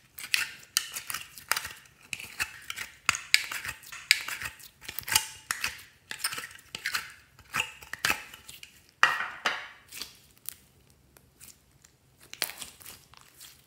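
Slime being mixed and squished: irregular sticky clicks, pops and crackly squelches, with a quieter stretch near the end.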